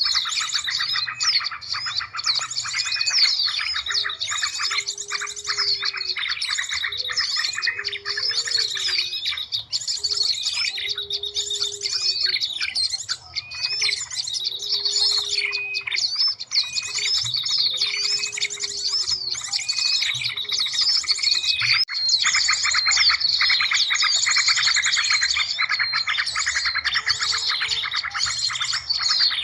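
Bird-lure recording of many small songbirds calling at once: a dense, continuous mix of high chirps, trills and whistles. Through the middle a low hooting note repeats every second or two.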